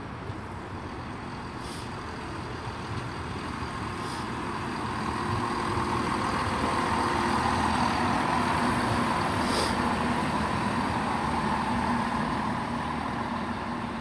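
Class 170 Turbostar diesel multiple unit pulling away from the platform, its underfloor diesel engines working under power. The sound builds about a third of the way in, holds loudest through the middle, then eases off near the end as the train draws away, with a few brief faint high hisses along the way.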